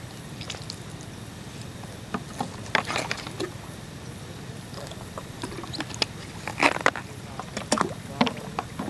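Water splashing and sloshing in short irregular bursts, clustered in a few spells, over a steady low hum.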